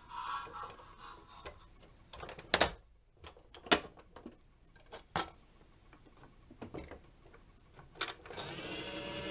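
Plastic clicks and knocks as a toy garbage truck and its bin are handled, then, a little past eight seconds in, the toy's battery-powered side bin lifter starts whirring steadily as it raises a wheelie bin to tip it.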